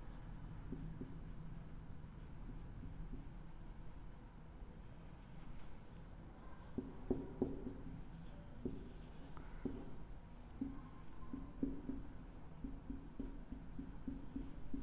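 Quiet marker pen drawing on a whiteboard: a run of short scratchy strokes and light taps, loudest from about the middle on.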